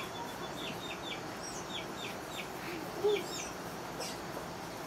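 Chickens clucking amid short high bird chirps that come a few at a time, with one louder cluck about three seconds in.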